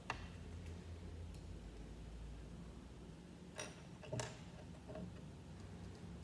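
Small plastic Lego bricks clicking and clinking as pieces are picked off a table and pressed together: a sharp click at the start, then two more close together past the middle, over a low steady room hum.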